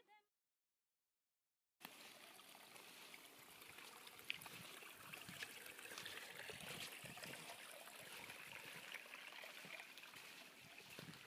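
A small mountain stream trickling and splashing over slate ledges. It starts abruptly about two seconds in, after a stretch of silence.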